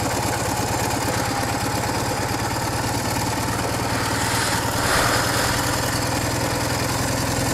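Motorcycle engine running steadily at low revs, with a slight swell about five seconds in.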